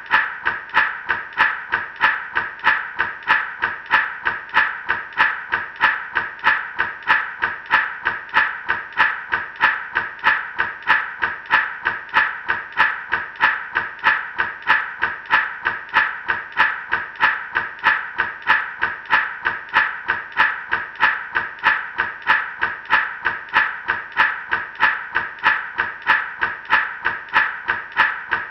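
Gourd rattle shaken in a steady, even rhythm, each stroke a short rattle of seeds inside the dried gourd.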